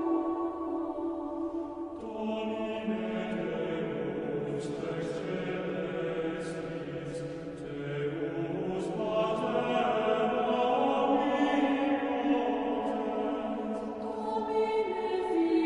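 Slow choral chanting with long held notes that shift in pitch every few seconds, as a music track.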